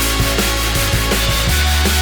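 Background rock music with a steady beat and a heavy, sustained bass line.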